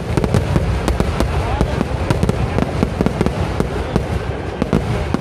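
Fireworks display: a dense, unbroken barrage of firecracker bangs, several a second, over a continuous rumble.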